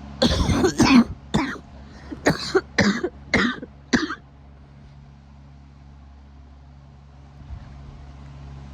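A person's coughing fit: about seven coughs in quick succession over roughly four seconds, then it stops. A steady low hum runs underneath.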